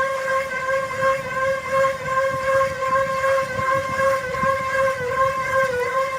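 A steady, high-pitched mechanical whine with a slight wobble in pitch, over a low rumble.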